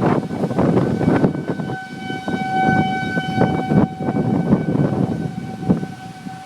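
Outdoor warning siren sounding one steady tone that swells louder about two seconds in and eases again about four seconds in, over wind buffeting the microphone during a tornado threat.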